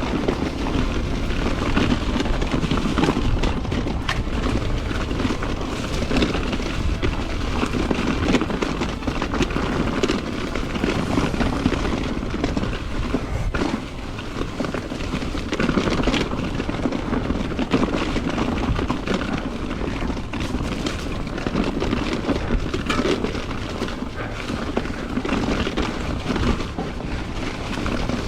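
Wind buffeting the camera microphone and tyres rolling over a rocky dirt trail on a fast mountain bike descent, with frequent clatters as the bike rattles over bumps.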